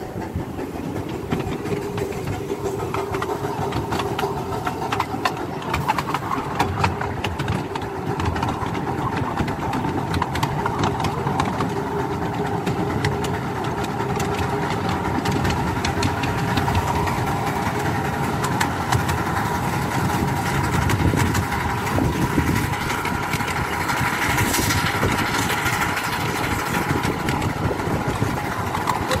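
Miniature steam train running along the track, heard from a passenger car right behind the locomotive: a steady rumble of wheels on rail with frequent short clicks.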